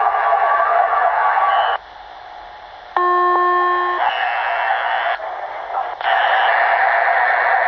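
Drive-thru headset radio channel received on a scanner, giving a steady rushing hiss of an open channel with no voice. The hiss cuts out for about a second, then a steady beep of about a second is heard, and the hiss returns.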